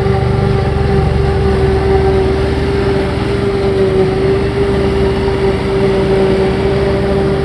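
Krone BigX forage harvester chopping grass and blowing it into a trailer, with a tractor running alongside. It is a steady, heavy engine drone with a constant whine held over it.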